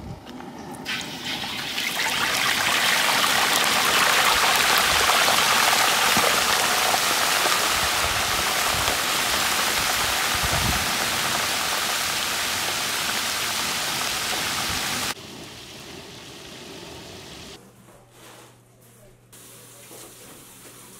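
Whole walleye deep-frying in a wok of hot oil: loud, steady sizzling and bubbling that builds over the first couple of seconds and cuts off abruptly about fifteen seconds in, leaving a much quieter stretch.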